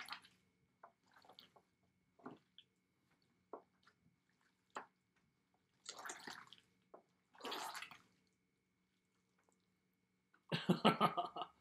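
Watery homemade borax (sodium tetraborate) slime squelching as it is squeezed and kneaded by hand, in scattered short wet squishes and two longer squelches. Near the end there is a louder, quick run of wet squelches as the runny slime is pulled up in strands.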